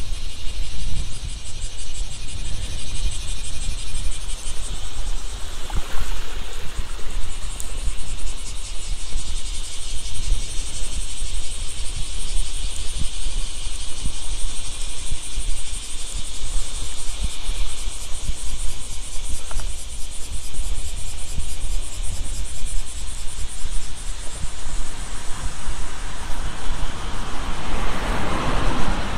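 Summer insects calling in a steady, high-pitched, rapidly pulsing chorus, over a low wind rumble on the microphone. Near the end a car approaches along the road.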